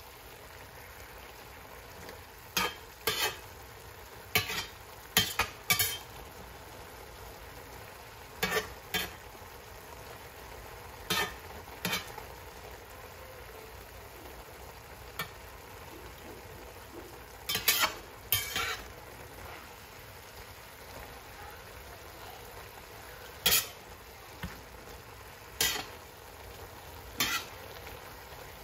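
Spinach sizzling in a stainless steel frying pan, with a metal utensil clinking and scraping against the pan in scattered strokes as it is stirred.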